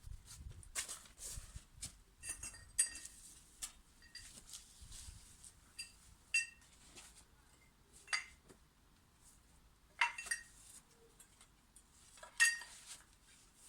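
Irregular clinks and knocks, several with a short metallic ring, the sharpest about 3, 6, 8, 10 and 12 seconds in.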